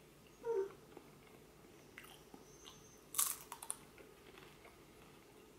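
A bite into a dried carrot chip about three seconds in: one loud crisp crunch followed by a few smaller crunches of chewing. A brief pitched sound comes about half a second in.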